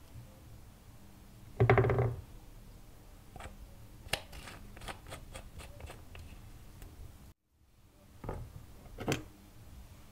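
A short, loud squelch of clear slime pressed by hand, followed by a run of light clicks and taps as a glass nail-polish bottle, its cap and lipstick tubes are handled.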